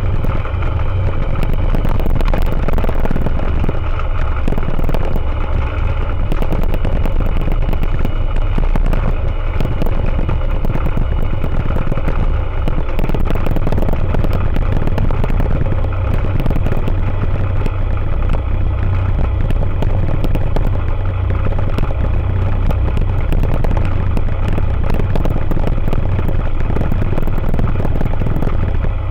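Rotax 912 ULS four-cylinder boxer engine and propeller of an Aeroprakt A22LS Foxbat ultralight running steadily, heard from inside the cockpit.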